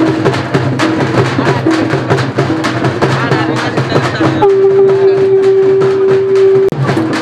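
Background music with a steady drum beat and rhythmic percussion, broken by one long held note about four and a half seconds in that lasts roughly two seconds before the beat comes back.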